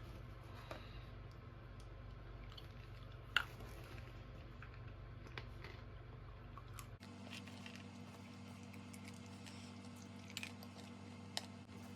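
Quiet room tone with a steady low hum and a few light taps and clicks, one sharper click about three and a half seconds in; the hum changes abruptly about seven seconds in.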